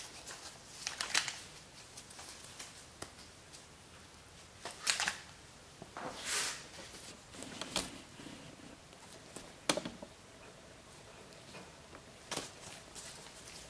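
Sporadic light clicks and rustles of objects being handled on a workbench, about half a dozen of them a second or two apart, one a little longer than the rest.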